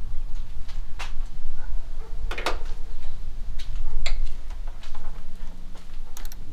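Scattered sharp clicks and knocks from hands working on the radiator hose and nearby parts in a Ford AU Falcon's engine bay, over a steady low rumble.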